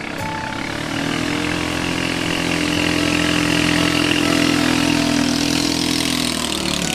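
An engine running at a steady pitch, getting louder about a second in and dropping away near the end.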